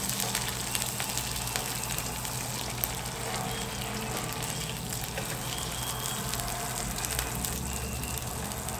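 Pork belly sizzling on a hot grill plate, a steady hiss dotted with small crackling pops of spitting fat.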